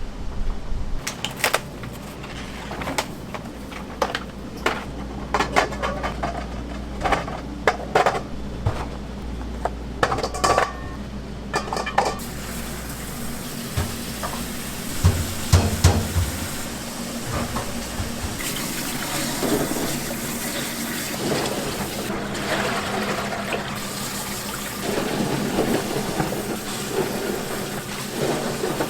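Kitchen clatter: dishes and metal utensils clinking and knocking, giving way to a steady rushing hiss about twelve seconds in.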